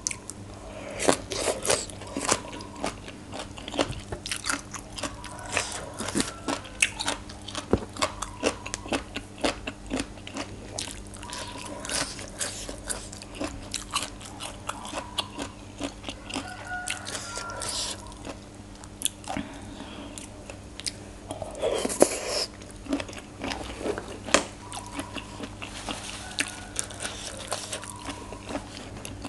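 Close-up chewing and crunching of mouthfuls of green papaya salad with raw shrimp: crisp, irregular crunches and wet mouth sounds throughout.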